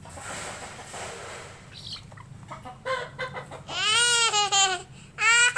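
Chicken clucking in short notes, then two loud drawn-out squawks that rise and fall in pitch, the second near the end.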